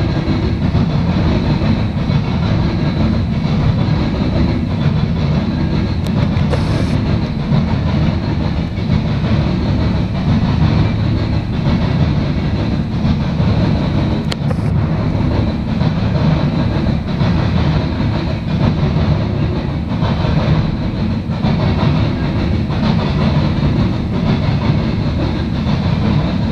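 Loaded Norfolk Southern coal cars rolling past at steady speed: a continuous, loud rumble of steel wheels on the rails, with faint repeated clicks as the trucks pass over the track.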